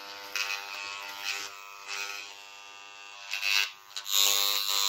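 Parkside electric engraving pen running on its lowest setting, its vibrating needle giving a steady electric buzz. The buzz grows clearly louder about four seconds in.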